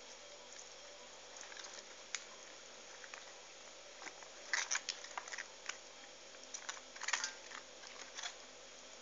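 Soft wet clicks and squishes of hands handling cooked cabbage leaves, scattered and bunched in two short clusters, about four and a half and about seven seconds in.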